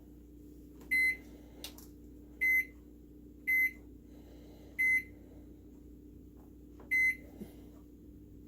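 Microwave oven's electronic beeper giving five short, single-pitched beeps at uneven intervals, over a steady low hum.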